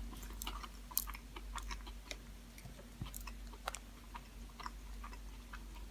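A person chewing a mouthful of a tuna sub sandwich on soft Italian bread: quiet, irregular mouth clicks and smacks.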